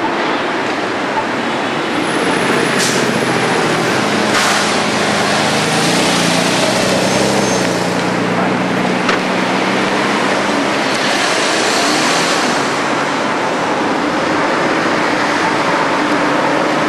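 Street traffic: car engines running and tyres rolling as cars pass close by, with a steady engine hum through the middle stretch.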